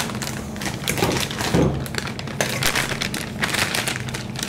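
A spatula scraping stiff churro dough out of a stainless steel saucepan, with the rustle of the plastic piping bag being filled, in short irregular bouts.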